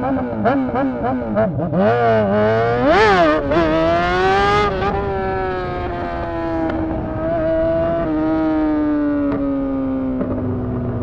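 Honda CBR600's inline-four engine running with no exhaust fitted, a loud open-header sound. It revs up and down in quick rises at first, climbs to a high rev about three seconds in, then its pitch falls slowly as it winds down and levels off lower near the end.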